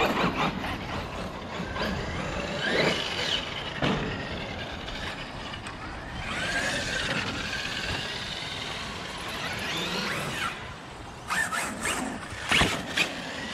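Electric RC monster trucks, among them a Traxxas X-Maxx with its brushless motor, whining up and down in pitch as they are driven over dirt jumps, with a few sharp knocks near the end.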